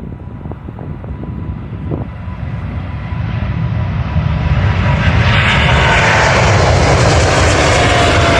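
Airliner engines growing steadily louder as the plane approaches and passes, with a whining tone that drops slightly in pitch near the end.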